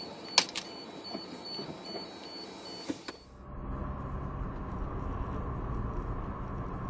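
Road noise inside a vehicle's cab with a few sharp clicks and rattles. About three seconds in it switches to a steadier, deeper drone of tyre and engine noise inside a moving car, with a faint steady hum.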